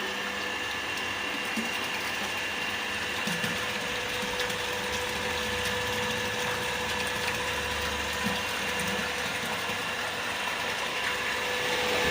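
Electric water pump motor running steadily with a constant whine, the pump being run after its mechanical seal was replaced.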